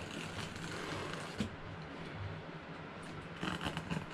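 A blade slitting the packing tape along the top of a cardboard box, with soft scraping and rustling of the cardboard, a sharp click about a second and a half in and a run of sharper scrapes near the end.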